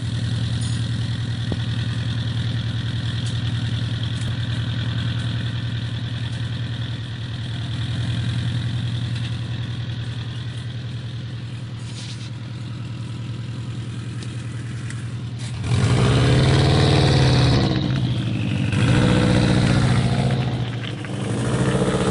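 2004 Subaru WRX's turbocharged flat-four engine with STI upgrades and an aftermarket exhaust, heard at the tailpipe. It idles steadily, then is revved three times in the last six seconds, each rev rising and falling.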